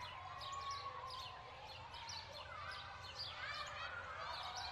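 Many small birds chirping and twittering together in quick, short calls, over a faint steady low rumble.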